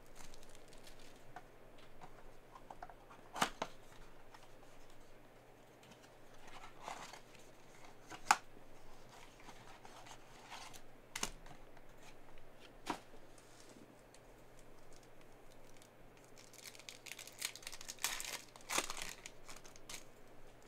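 Packaging of a trading-card box being opened: plastic wrapper crinkling and tearing, cardboard flaps being folded open, with a few sharp clicks scattered through. Bursts of crinkling come about seven seconds in and again near the end.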